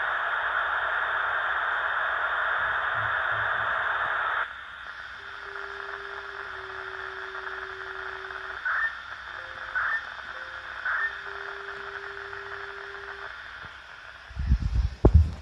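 FM radio static from an SDR receiver tuned to a municipal disaster-prevention radio channel; about four seconds in the hiss drops sharply and goes quieter, as when the station's carrier comes on. A few faint steady tones and three short chirps follow, and near the end come several loud low thumps.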